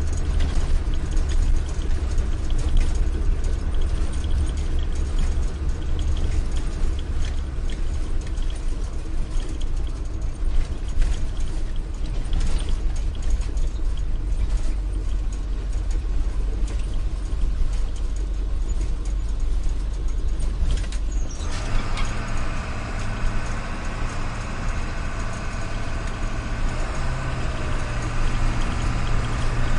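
A vehicle engine running with a steady low rumble and fine rattling clicks, a dubbed engine sound rather than the plastic toys themselves. About 21 seconds in, it switches abruptly to a different engine sound with a steady hum and a higher whine.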